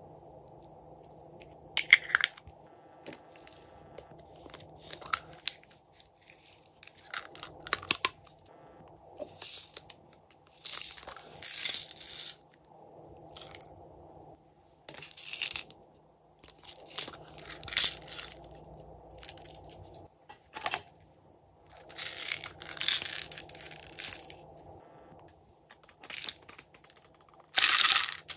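Small plastic containers and slime toppings being handled by hand: a series of short rustling, clicking handling noises a second or two long, spaced a few seconds apart, the loudest just before the end.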